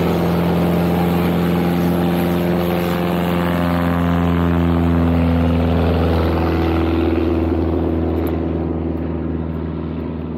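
Light aircraft's piston engine and propeller running at a steady, even drone, fading a little near the end.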